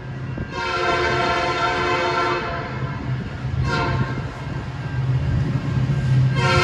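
Diesel locomotive's multi-chime air horn sounding a long blast, then a short one, then starting another long one near the end, over the steady low rumble of the locomotive. Together with the long blast just before, the pattern matches the long-long-short-long grade-crossing signal.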